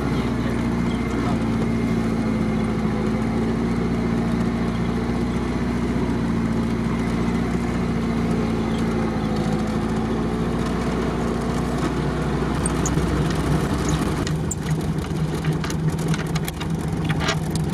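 GAZ-69's engine running steadily at low speed, heard from inside the cab. Past the middle it settles to an idle, with a few light clicks near the end.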